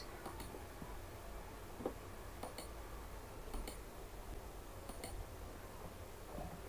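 Low steady room hum with about five faint, sharp computer clicks spread across a few seconds, several of them in quick pairs.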